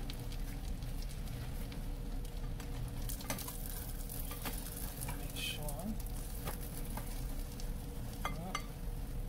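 Buttered sandwich frying in a nonstick pan, a steady sizzle of the melted butter. A plastic spatula scrapes and taps against the pan a few times from about three seconds in.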